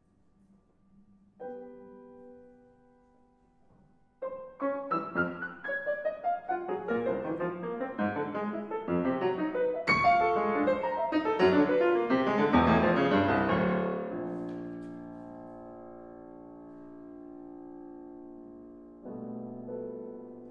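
Solo piano playing contemporary classical music. A single chord rings out about a second in. From about four seconds a rapid flurry of notes builds to a loud, dense passage, then breaks off into a long held resonance, and a new chord sounds near the end.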